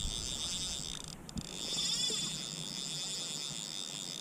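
Fly reel's drag ratchet buzzing steadily as a hooked fish pulls line off the reel.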